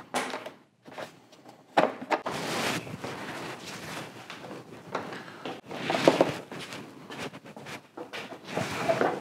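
A cloth rubbing and wiping the plastic parking sensors clean, in irregular strokes, with small knocks and rustles as they are handled.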